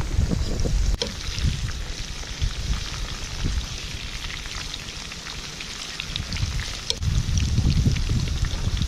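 Wind buffeting the microphone, heaviest in the first second and again near the end, with a light scattered crackle throughout.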